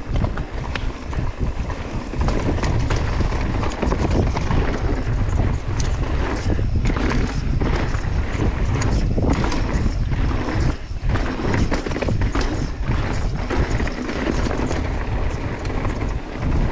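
Wind buffeting the microphone of a mountain bike descending a rocky trail, with a constant low rumble and a stream of sharp clatters and knocks from the tyres and bike over rocks.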